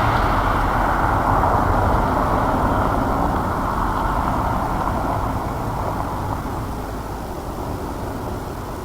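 A car passing on a gravel road, its tyres crunching over the gravel in a steady rush of noise that slowly fades as it drives away.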